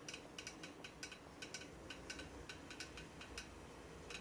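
Dripless caulking gun being squeezed to push caulk out of the tube: faint, repeated clicking from its handle and plunger mechanism, a few clicks a second at uneven spacing.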